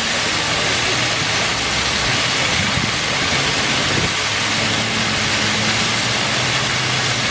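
Steady rushing noise with a low engine hum underneath. The hum drops out about two seconds in and comes back about two seconds later.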